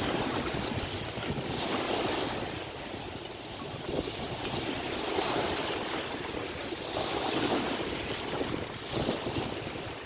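Small sea waves washing and breaking along the shore in surges that swell every two to three seconds, with wind rumbling on the microphone.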